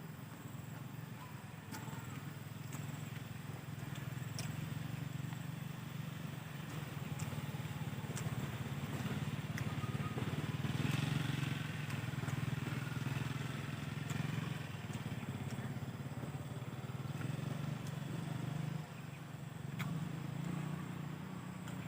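An engine running steadily with a low drone that grows louder through the middle and eases off again, with scattered light clicks over it.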